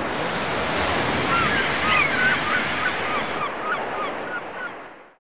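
Surf breaking against rocks, a steady loud wash, with many short bird calls over it, fading out near the end.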